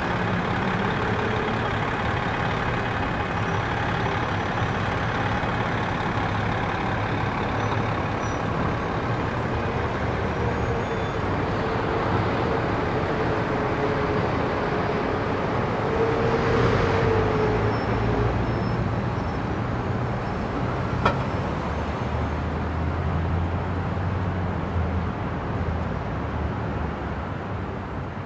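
Steady city street traffic: heavy vehicles such as trucks and buses running their engines in a continuous low rumble. A wavering whine swells a little past the middle as the traffic grows louder, and a single sharp click comes about three quarters through.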